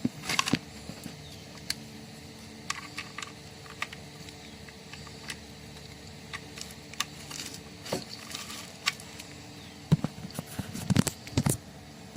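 Scattered clicks and small knocks from handling things at a work desk, irregular and sparse, with louder clusters near the start and about ten and eleven seconds in, over a faint steady electrical hum.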